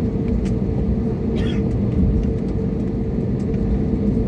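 Airliner cabin noise: a steady low rumble of the jet engines and air system, with a constant hum and a few faint clicks.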